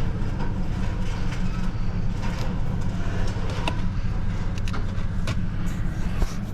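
Steady low rumble of a vehicle on the move, with scattered light clicks and knocks over it.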